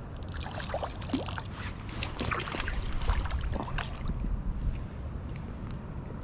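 A hooked rainbow trout splashing at the water's surface as it is reeled in toward a landing net, heard as scattered short splashes and clicks over a steady low rumble.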